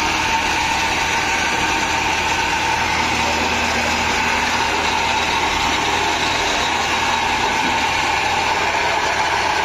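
Steady, unchanging machine drone with a constant hum.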